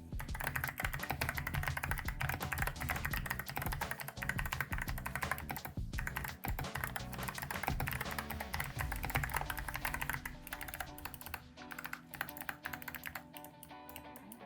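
Fast typing on a mechanical keyboard with Kailh Box Arctic Fox clicky switches: a dense, rapid stream of crisp clicks that thins to scattered single keystrokes near the end, over background music.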